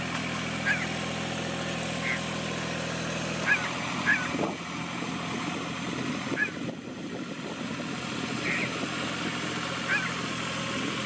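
Small tractor's diesel engine running steadily while it drags a leveling log through wet paddy mud on iron cage wheels. The engine sound turns rougher and less even about three and a half seconds in. Short high chirps recur every second or two.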